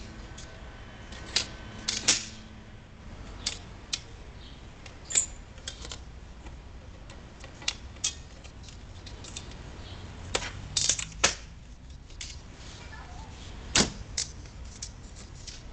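AceLife aluminum folding camping table being folded up: irregular sharp metallic clicks and clanks as the legs are folded in and the tabletop is closed.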